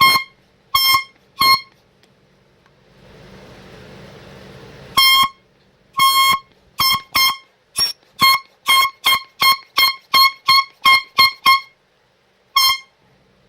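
Cheap handheld air horn blown in short, loud, high-pitched blasts: three quick toots, a pause with a soft rushing noise, then a fast run of about twenty toots at three or four a second, and a last single toot near the end.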